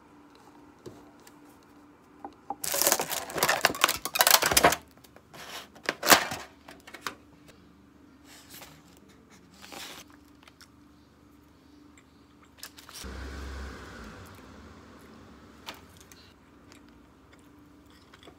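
Rustling and clattering of objects being handled at close range: a dense two-second flurry, then a single sharp clatter, a few smaller ones and a low muffled bump, over a faint steady hum.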